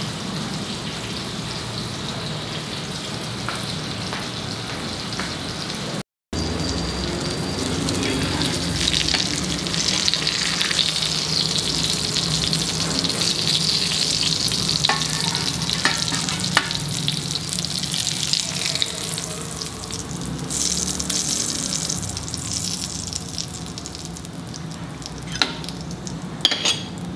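Marinated fish pieces sizzling as they fry in oil in a pan over a medium flame: a steady sizzle that cuts out briefly about six seconds in, grows louder for a stretch, then eases off, with a few light clicks near the end.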